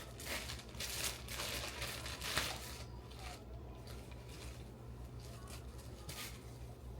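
Plastic clothing packaging crinkling and rustling in a run of short handling noises, then a single rustle near the end.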